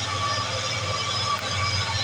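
Mitsubishi Fuso tanker truck's diesel engine labouring up a steep climb, a steady low drone with a high whine above it, the truck all but out of breath on the grade. Heavy rain hisses throughout.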